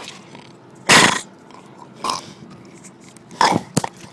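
Pitbull puppy playing at close range, giving short, loud barks, the first and loudest about a second in, with a sharp click near the end.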